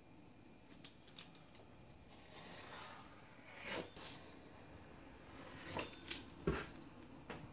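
Faint scrapes and light taps of a steel ruler and a cutting blade on a floured work surface as rolled croissant dough is cut into triangles: a soft scraping swish a few seconds in, then several sharp taps, the strongest a dull knock in the second half.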